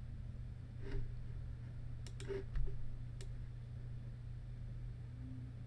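A few short, soft clicks from a computer mouse and keyboard, mostly in the first half, over a steady low hum.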